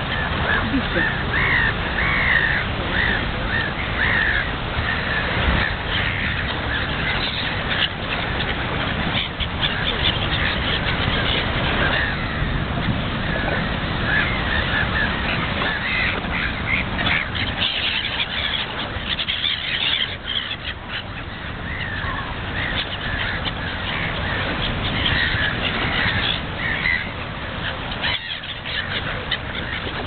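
Gulls and ducks calling, many short overlapping calls, over a steady low rush of wind and waves.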